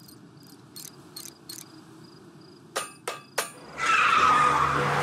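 Crickets chirping in a night ambience, a regular run of short high chirps. Three sharp clicks come about three seconds in, then a loud rushing sound with a falling whine sweeps in.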